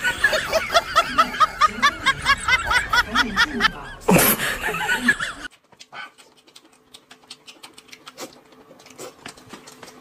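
A quick run of snickering laughter, a comedic sound effect, about seven pulses a second, ending in a short rush of noise and cutting off abruptly halfway through. After it come soft eating noises: scattered clicks of chopsticks against glass bowls and chewing.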